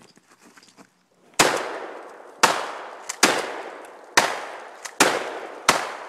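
Six 12-gauge shotgun blasts in quick succession, about one a second, each trailing off in a fading echo.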